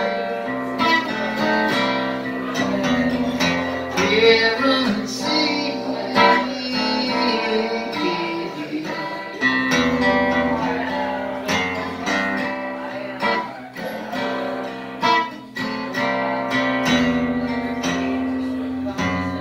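Plugged-in cutaway acoustic guitar strummed in a steady run of chords, an instrumental passage with no words.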